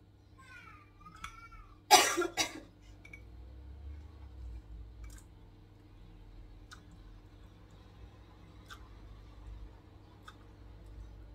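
A person coughs, a loud double cough about two seconds in. Then come faint light clicks every second or two as a silicone pastry brush is dipped into a small glass and dabbed on a sponge cake.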